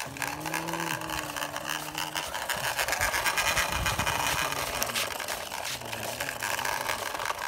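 Plastic toy truck rolling across sandy, gritty dirt, its tyres crunching and rattling on the grit. A low steady hum runs through the first two seconds, and a lower hum sinks in pitch later on.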